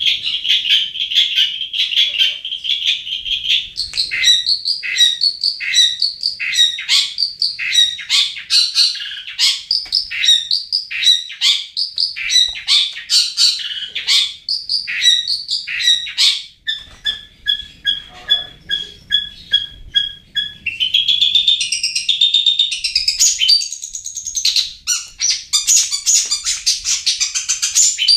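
Long-tailed shrike (cendet) singing: a long run of fast, varied high notes, broken about two-thirds through by a few seconds of one note repeated evenly about three times a second, then dense, rapid notes again.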